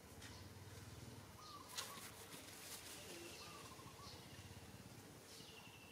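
Faint outdoor ambience: a few distant bird calls and trills over a low hum, with one soft click near the middle.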